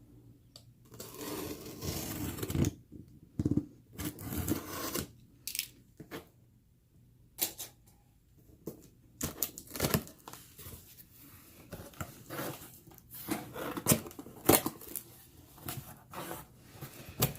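A mail package being opened by hand: bursts of tearing and rustling packaging, with sharp clicks and taps and a short pause near the middle.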